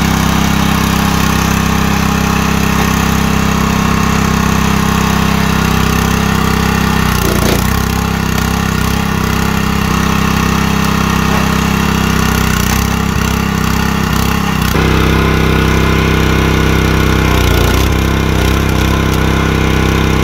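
Honda gas engine on a hydraulic log splitter running steadily, its pitch sagging briefly twice, about seven and seventeen seconds in, as the ram loads up pushing a log against the wedge.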